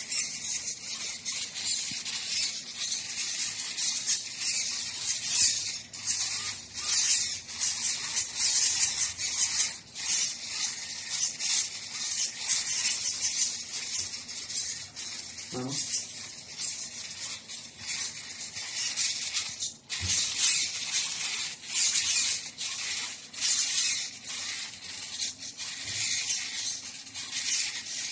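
Servo motors in a student-built robotic hand buzzing and rattling as they move its fingers: an uneven, hissy noise that keeps swelling and dipping.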